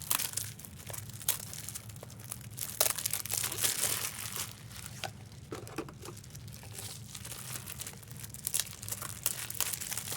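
Wrappers of Fleer Ultra Wolverine trading-card packs being torn open and crinkled, in irregular bursts of rustling and crackling, busiest around three to four seconds in.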